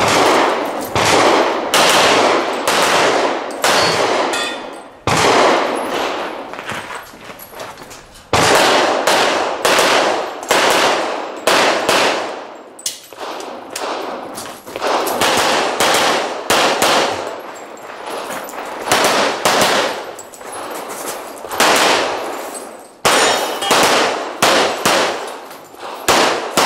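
Semi-automatic pistol shots fired in quick pairs and rapid strings during a practical-shooting stage, with short breaks between strings while the shooter moves.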